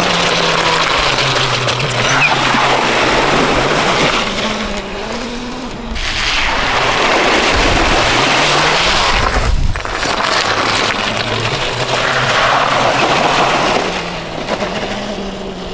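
Caofen F80 electric dirt bike riding along a gravel lane and through a muddy puddle: a steady rushing of tyres and splashing water over a low electric-motor hum, changing abruptly twice between shots.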